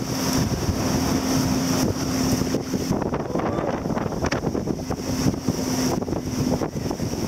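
Wind buffeting the microphone over the steady drone of the motorboat towing the banana boat across the sea, its hum fading in and out.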